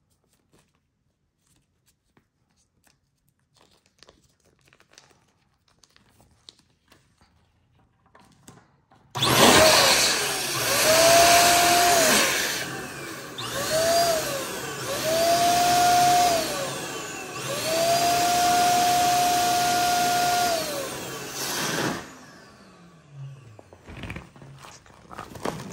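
Faint handling for the first nine seconds, then an electric balloon pump starts and runs for about thirteen seconds, inflating a Bobo balloon, its whine rising and dropping back several times before it cuts off.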